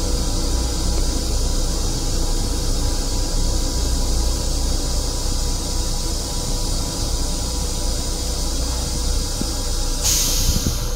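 Metro-North M7 railcar running, heard from inside its restroom: a steady low rumble with a hiss over it. About ten seconds in, a sharper burst of hiss starts suddenly.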